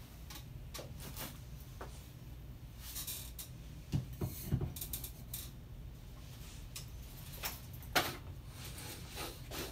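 A folding rocking camp chair clicking and creaking as someone shifts in it, over a low steady hum. About four seconds in, a bottle is set down on a countertop with a couple of knocks. Near the end there is a sharp knock as he gets up out of the chair.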